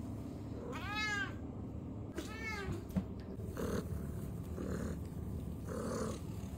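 A domestic cat meowing twice, each call rising and then falling in pitch, followed by three softer, short breathy sounds about a second apart.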